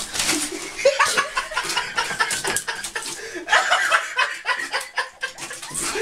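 People laughing and chuckling in short bursts.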